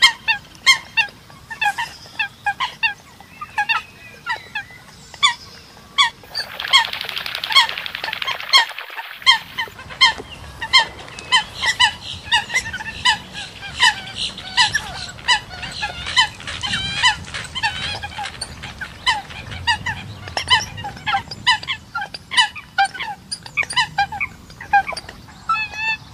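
Eurasian coots giving short, sharp honking calls over and over, several a second and overlapping. About six seconds in, a rush of noise sits under the calls for roughly three seconds.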